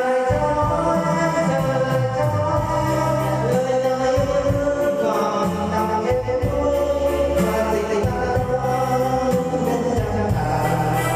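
Singing over music with a steady, repeating bass beat.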